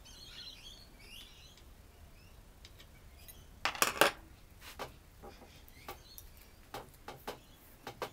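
Metal knocks and clinks as the seized end bell of a vintage Crompton Parkinson repulsion-start induction motor is worked loose. The loudest is a quick cluster of knocks about four seconds in, with single knocks after it. Birds chirp faintly near the start.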